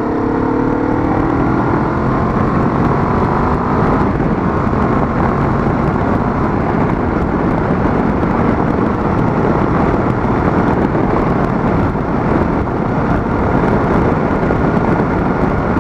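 Kawasaki Vulcan S parallel-twin engine pulling hard under acceleration from 40 mph, its note rising for about four seconds. After that a loud, steady rush of wind on the microphone takes over and mostly covers the engine as speed climbs.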